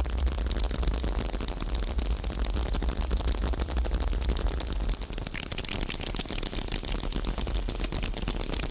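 A dense, continuous crackle of rapid small pops over a low rumble, easing slightly about five seconds in.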